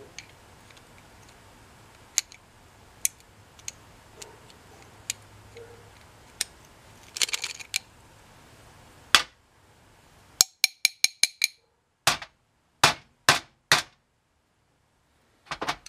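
Metal clicks, clinks and taps of a screwdriver and small carburetor parts being handled on a metal sheet pan. A cluster of clinks comes a little before halfway, then a loud knock, a quick run of about seven ringing metallic clicks, and four sharp knocks near the end.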